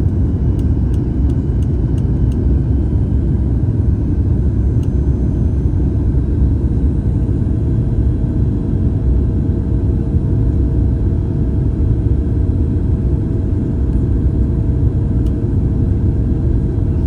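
Steady low rumble of a Boeing 737 MAX 8 airliner cabin in flight near landing: jet engine and airflow noise, with a steady hum and a second, higher tone joining about halfway through. A few faint ticks near the start.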